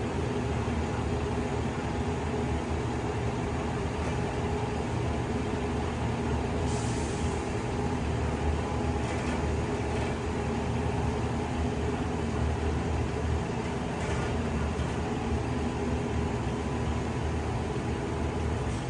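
Diesel engine of a Horyong truck-mounted ladder lift running steadily to power the raised ladder: a low drone with a steady hum over it. The level drops right at the end.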